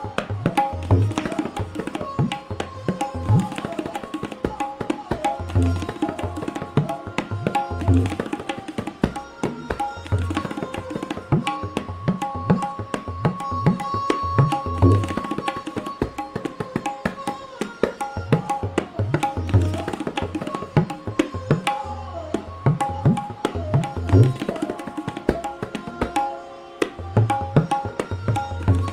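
Solo tabla played fast and densely: crisp strokes on the dayan with resonant bass strokes on the bayan that swoop in pitch, over a repeating melodic accompaniment.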